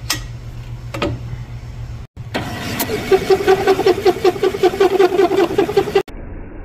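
Valve seat cutter in a head machine cutting down a newly installed oversized intake valve seat in a cast-iron cylinder head, chattering in a fast, even rhythm of several pulses a second. Two short sharp metal knocks come before the cutting, and after a cut near the end a quieter steady machine hum remains.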